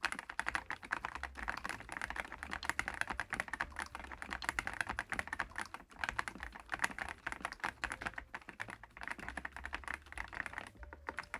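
Fast, continuous typing on a DAREU EK75PRO gasket-mount mechanical keyboard with Dream HiFi switches: a dense stream of key clacks, several strokes a second.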